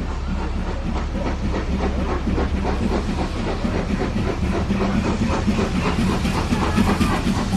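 Heritage railway train running, with a steady low drone under a rapid clatter and hiss, getting a little louder toward the end.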